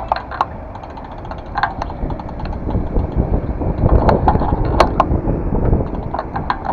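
Bicycle riding noise heard from the handlebars: tyres and frame rattling over rough asphalt and tram rails, with sharp clicks and knocks around four and five seconds in, over wind and traffic noise.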